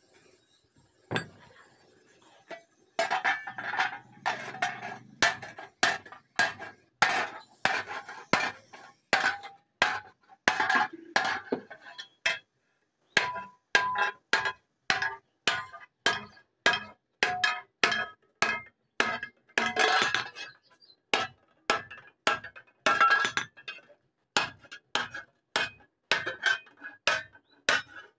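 Hand hammer striking a steel strip laid over a grooved iron swage block, bending it into a channel: a long run of ringing metallic clanks, about one and a half a second, with a short pause about halfway.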